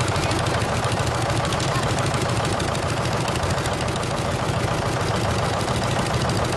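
Tractor engine running steadily close by, with a rapid, even firing beat.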